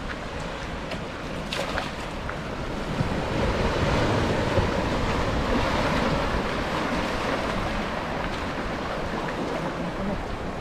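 Shallow sea water splashing and sloshing around a fisherman wading out to his cast net, with wind on the microphone. The wash swells from about three seconds in and eases back after about seven seconds.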